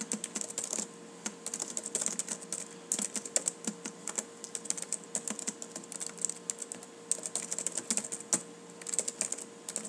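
Typing on a computer keyboard: quick runs of keystrokes with short pauses between them, as text is entered into a web form.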